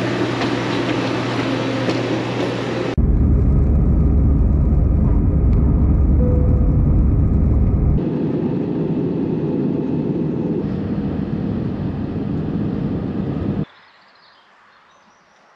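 Steady vehicle engine and travel rumble in several short clips cut together, the sound changing abruptly at each cut; the deepest, loudest rumble comes between about three and eight seconds in. Near the end it drops suddenly to a quiet outdoor background.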